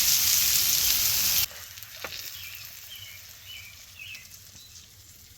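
Mushrooms, turkey sausage and peppers frying in a pan, a steady sizzle that cuts off abruptly about a second and a half in. After it comes quiet outdoor background with a few faint bird chirps.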